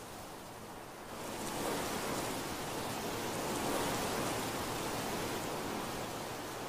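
Steady rushing of wind through tree leaves, swelling about a second in and easing off near the end.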